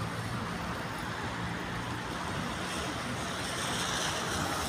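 Steady road traffic noise with a low, even engine hum underneath.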